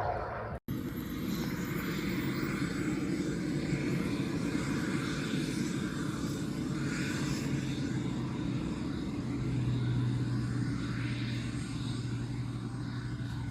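Steady engine drone with a low hum that grows stronger past the middle, cutting out for an instant about half a second in.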